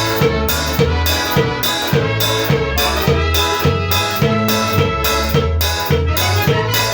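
A band playing a tropical number at rehearsal, with a steady beat of about two strokes a second from the drums, a strong bass line and melodic instruments on top.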